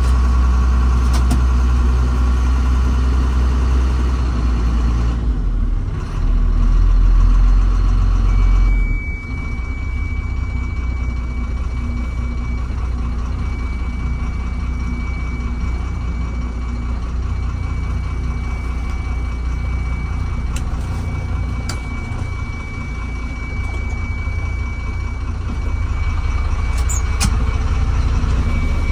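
Diesel engine of heavy earthmoving machinery running steadily, loudest in the first nine seconds. A thin, steady high whine joins about eight seconds in.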